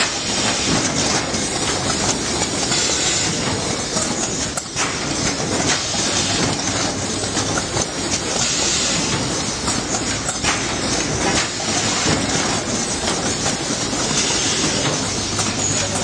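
Automatic wire harness processing line running: a dense, steady mechanical clatter of many small clicks and knocks from its pneumatic stations and crimping presses, over a constant high hiss.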